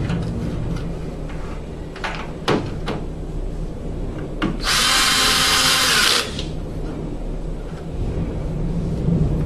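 Power drill running in one short burst of about a second and a half near the middle, starting and stopping abruptly. A few sharp knocks of handled parts come before it, over a steady low hum.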